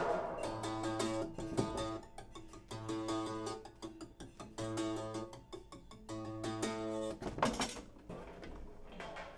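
Strings mounted on a homemade wooden sound body, sounded with a thin stick, ringing out a pitched note about four times in a slow, loose rhythm. A sharp knock comes about seven and a half seconds in.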